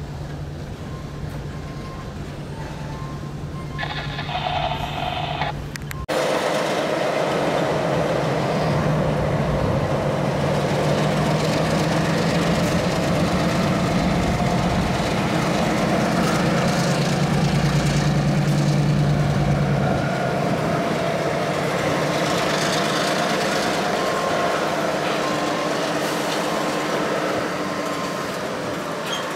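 A freight train of tank cars rolling through a grade crossing, with a ringing tone from the crossing signal. About six seconds in the sound changes abruptly to a louder steady drone: an Indiana Harbor Belt switcher locomotive's diesel engine running as it pulls hopper cars past, over the rumble of the cars on the rails.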